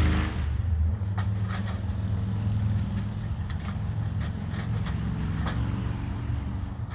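A steady, low engine hum with a few faint clicks over it.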